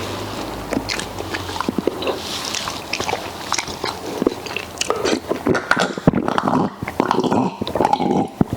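Close-up eating sounds: biting and chewing fufu, okra soup and grilled pork, with many irregular wet mouth smacks and clicks, coming thicker in the second half.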